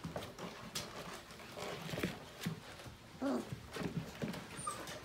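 Five-week-old Portuguese Water Dog puppies scrambling about in play: irregular tapping and scrabbling of small paws and claws on a hard plastic play dome, with a brief puppy whine about three seconds in.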